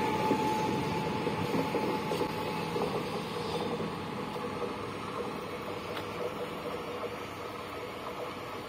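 Pesa-built electric multiple unit of Koleje Wielkopolskie pulling away down the line, its running noise and a steady whine fading steadily as the train recedes.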